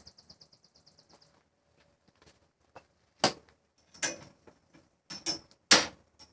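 Tools and parts clicking and knocking on an air conditioner as it is taken apart: a fast run of faint ticks in the first second and a half, then scattered clicks and a few sharp knocks, the loudest near the end.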